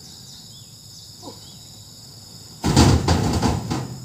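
Oil palm fruit bunches thudding and rattling into a truck's cargo bed as they are loaded, one loud burst of knocks lasting about a second, a little past halfway. A steady high insect drone runs underneath.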